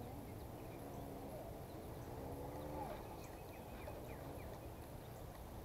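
Faint outdoor background with a steady low rumble, a few short bird chirps, and a brief pitched call about two seconds in that ends in a falling note.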